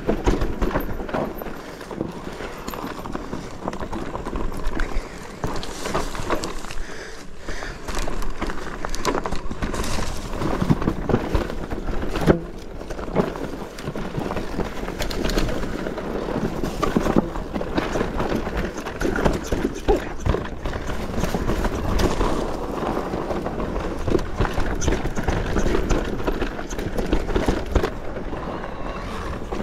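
Mountain bike riding down a rocky trail: tyres crunching over stones and the bike rattling in a constant clatter of knocks over a low rumble.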